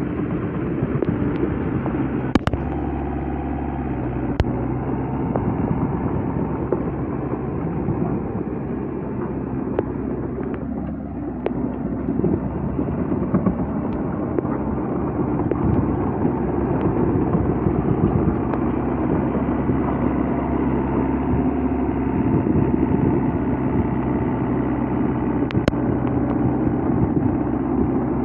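A vehicle engine running steadily, with a few sharp clicks over it.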